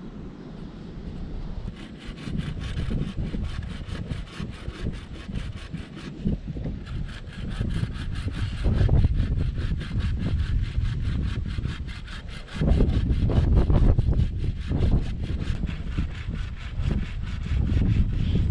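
Hand pruning saw cutting through a pale-barked sapling pole in steady, rapid back-and-forth strokes, starting about two seconds in. A low rumble runs under it, louder in the second half.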